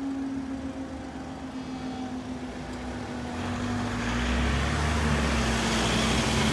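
Level crossing barrier mechanism humming steadily as the red-and-white booms rise to reopen the road. From about three seconds in, car and van engines rumble louder as road traffic moves off.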